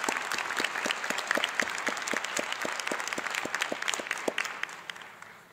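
Audience applause, a dense patter of many hands with some sharp individual claps close by. It dies away over the last second or so.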